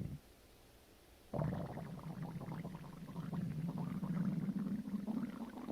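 Human stomach and intestines growling: a brief gurgle at the start, then, about a second and a half in, a long low rumble with bubbling crackle over it that lasts about four seconds.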